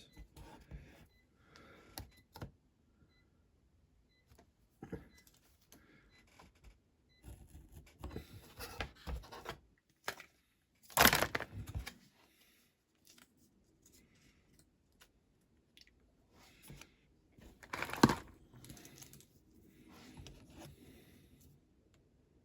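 Small hand-work noises on a metal diecast toy van body: scattered clicks, light scrapes and handling sounds. A louder rasping noise lasts about a second around eleven seconds in, and a sharp click comes near eighteen seconds.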